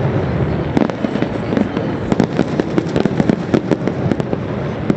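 Fireworks display: many sharp pops and crackles in quick, irregular succession over a continuous rumble of distant bursts.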